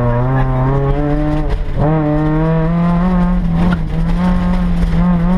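Rally car engine running hard under load, heard from inside the caged cabin. Its pitch climbs slowly, drops sharply at a gear change about a third of the way in, then holds steady.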